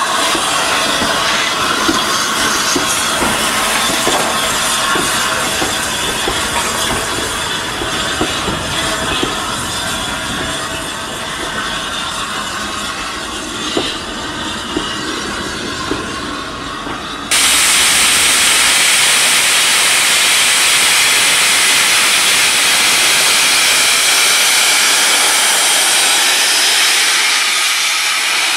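LNER A3 Pacific steam locomotive 60103 Flying Scotsman and its coaches rolling slowly past a platform, wheels knocking over the rail joints. About 17 seconds in, a sudden, steady, loud hiss of steam takes over as the engine stands with steam escaping low around its cylinders.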